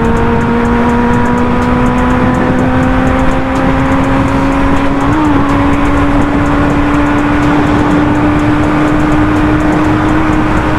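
Benelli TNT 600i's inline-four engine, breathing through an SC Project exhaust, pulling hard in one gear at full throttle. Its note rises slowly and steadily as the bike accelerates from about 130 to 176 km/h, over heavy wind rush on the microphone.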